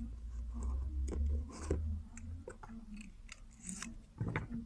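Aluminium-foil wrapper of a stick of Poxilina epoxy putty crinkling and clicking as the stick is cut into two pieces and the pieces are set down on a plastic surface: a string of short crackles and clicks, with a low rumble underneath during the first couple of seconds.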